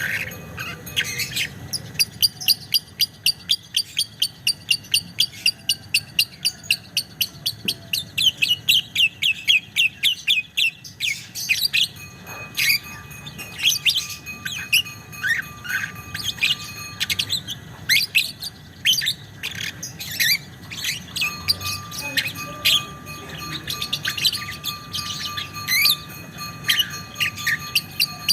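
Lovebird singing its long 'ngekek' chatter: a fast, even run of sharp high repeated notes for about ten seconds, then looser, irregular chirps and squeaks.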